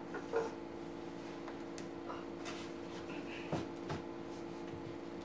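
Quiet room tone with a steady hum, a few faint clicks, and two soft knocks about three and a half seconds in as a man gets up and steps onto a low wooden platform.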